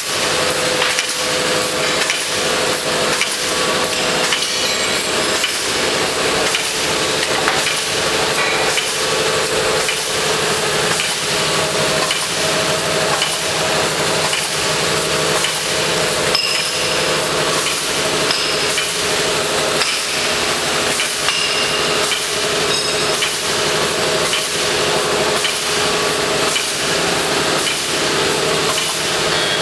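Plastic bag making machine running: a steady, loud clatter of rapid, even knocks over a constant mechanical drone.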